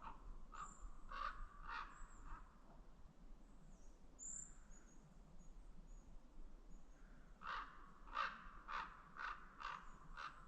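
Common raven calling: a series of about four short croaks, then after a pause of several seconds a longer run of about seven, roughly two a second.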